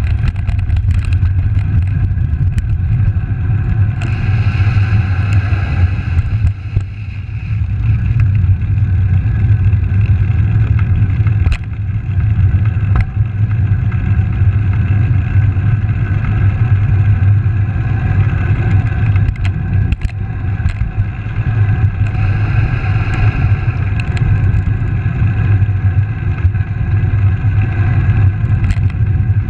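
Steady wind rush and low road rumble picked up by a handlebar-mounted camera on a moving Langster single-speed road bike, swelling twice in the upper range, with a few short knocks.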